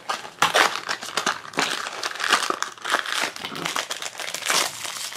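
Hands tearing open a small cardboard blind box and crinkling the wrapper inside, in a run of irregular rustles and tears.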